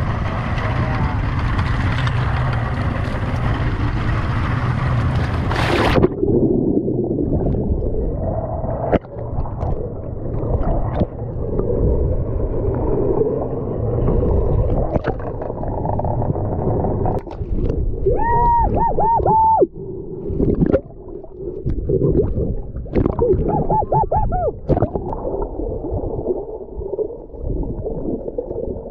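Open-air wind and boat noise, then about six seconds in the action camera plunges under the sea surface and everything turns muffled: underwater rumble of water moving past, scattered small clicks, and twice a short run of warbling gurgles.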